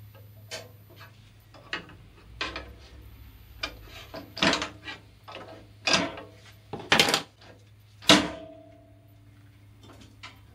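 A small metal square and hands knocking and sliding on the bandsaw's metal table as the blade is checked for square: a string of sharp clicks and clinks, the loudest about eight seconds in with a brief metallic ring, over a faint low steady hum.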